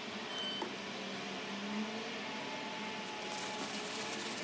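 Steady background hiss with a few faint clicks of a small metal clamp being handled, then paper towel rustling near the end as the clamp is wiped.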